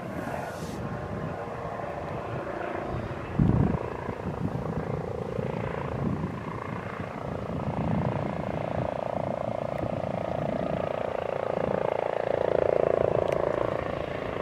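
Helicopter with a ducted tail fan flying close by: steady rotor and turbine noise that grows louder as it approaches, with a steady whine coming in from about eight seconds in. A single short thump about three and a half seconds in.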